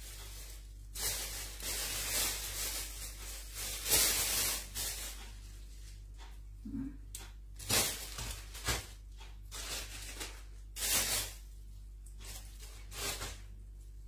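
Plastic bag rustling and crinkling in irregular bursts as bunches of chili-pepper leaves are lifted and sorted by hand.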